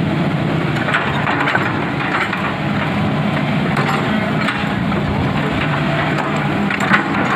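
Hitachi excavator's diesel engine running steadily under work, with scattered cracks and knocks from the machine working the earth, the sharpest one about seven seconds in.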